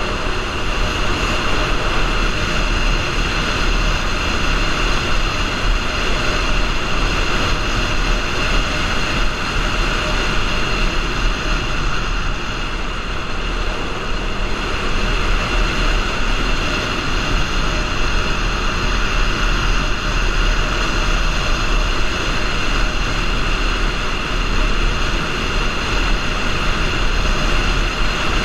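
Motorcycle cruising at steady speed: the engine runs evenly under heavy wind rush and rumble on the microphone.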